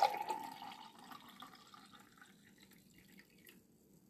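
Herbal tea poured into a tall drinking glass. The pour ends about a second in, then a faint trickle and drips fade away over the next couple of seconds.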